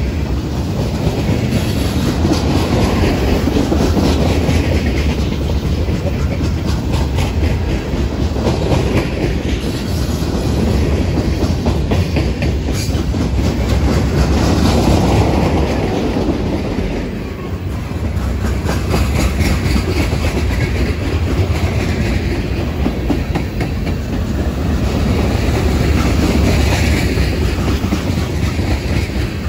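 Freight train's boxcars and tank cars rolling past: a steady rumble of steel wheels on rail with a fast run of clicks over the rail joints, easing briefly about two-thirds of the way through.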